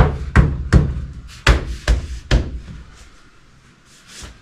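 A quick series of sharp knocks, six in about two and a half seconds, as the rubber door weatherstrip is struck to push it back and seat it in place. The knocking stops about halfway through.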